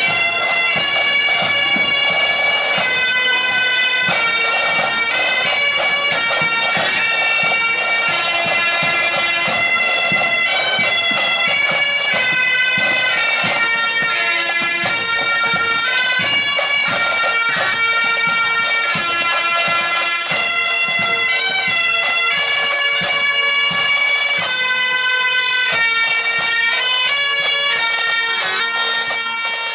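Pipe band playing on the march: Great Highland bagpipes sound a tune over their steady drones, with the snare and bass drums beating the time.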